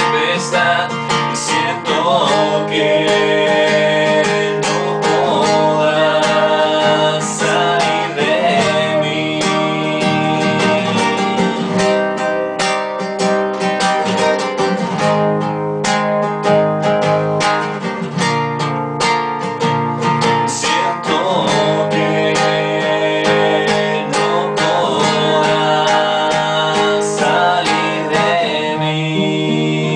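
Instrumental passage of a song led by acoustic guitar: steady strummed chords with melodic lines over them, growing a little quieter near the end.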